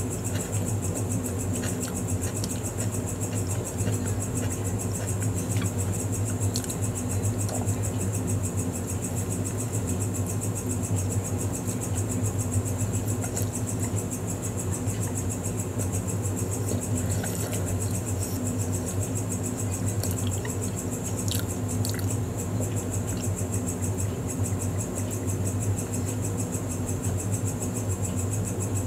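Close-up chewing and biting of a soft-bun burger, with scattered faint wet mouth clicks. Under it runs a louder steady low hum with hiss.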